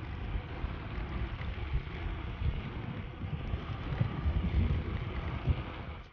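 Wind buffeting the microphone of a handlebar-mounted camera while cycling: a steady rushing noise with uneven, gusty low rumble.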